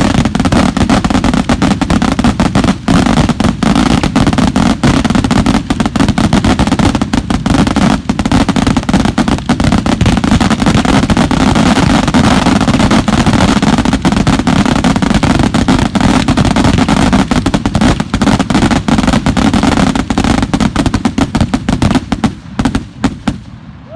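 Fireworks crackling in a dense, continuous barrage of rapid pops. The crackle thins out and stops about two seconds before the end.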